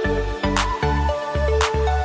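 Background music with a steady beat: a pulsing bass line under held notes, with a sharp hit about once a second.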